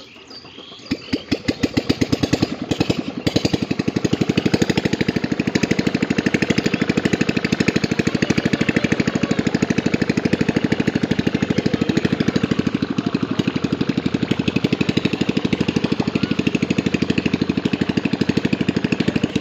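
A small engine starts up about a second in, builds over the next few seconds, then runs steadily with a fast, even beat.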